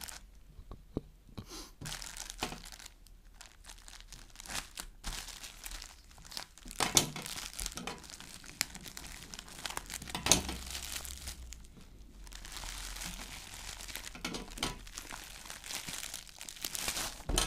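Shipping package being torn open by hand: irregular crinkling and rustling of the wrapping, with a few sharper tearing crackles.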